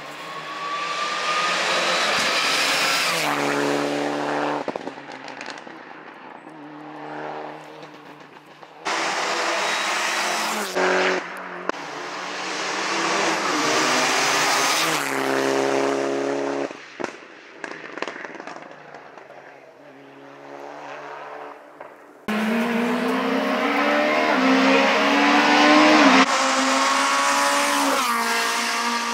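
Race cars accelerating hard past one after another, engines revving high and stepping through gear changes. The sound switches abruptly from one car to the next twice, and the last and loudest is a VW Golf IV rally car.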